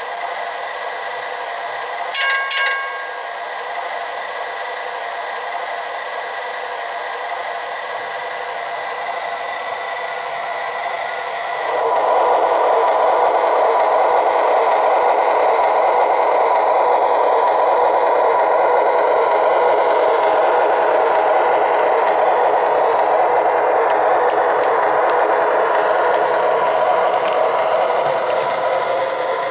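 MTH RailKing O-gauge PCC streetcar model running on three-rail track, its wheels and drive rattling and clattering steadily, louder from about twelve seconds in. A brief ringing sound comes about two seconds in.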